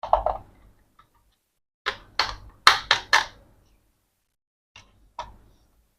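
Sharp clicks and knocks of hard plastic being handled: a quick cluster at the start, about five sharper knocks around two to three seconds in, and two lighter clicks near the end.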